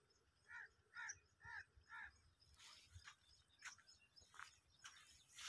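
A crow cawing four times, about two caws a second, faintly, followed by several short scratchy rustles.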